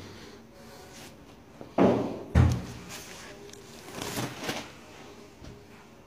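Two heavy thumps about half a second apart, then a softer rustling scrape about two seconds later.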